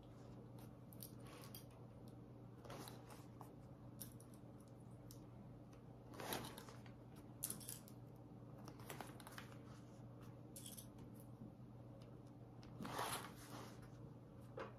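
Quiet handling of a vinyl bag panel and its piping: a few short, soft rustles and scrapes as the material is shifted by hand, over a steady low hum.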